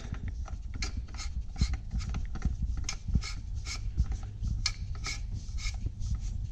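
A new spin-on oil filter being turned by hand onto its threaded mount: a quick, even series of short rubbing, scratchy strokes, about two or three a second, over a low rumble.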